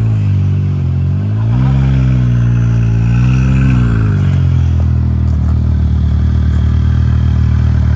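Side-by-side UTV engine revving: its pitch climbs about a second and a half in, holds, and drops back near four seconds, then it runs steadily at a lower speed with an even pulsing.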